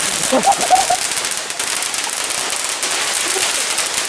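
Ground fountain firework spraying sparks with a steady hiss and crackle.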